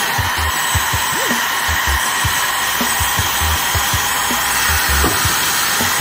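Heat gun running steadily, its fan blowing hot air in an even hiss onto a small metal part held in pliers.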